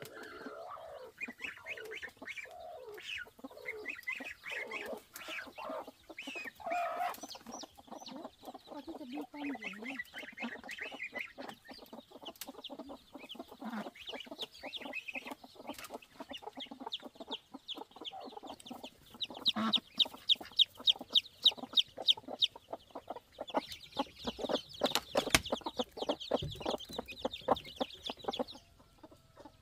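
A hen clucking while her small chicks peep rapidly and high-pitched inside a woven bamboo nesting basket, the peeping growing denser in the second half. Short clicks and rustles come from the basket being handled.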